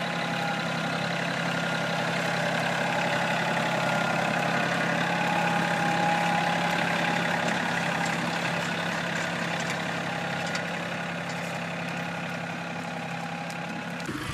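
John Deere compact diesel tractor engine running steadily while pulling a two-row planter across a tilled field. It grows louder to a peak about six seconds in, then fades slightly as the tractor moves on.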